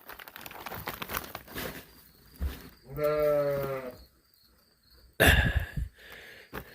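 One long, drawn-out call of steady, slightly falling pitch, about a second long, starting about three seconds in, over rustling handling noise. A heavy thump follows about five seconds in.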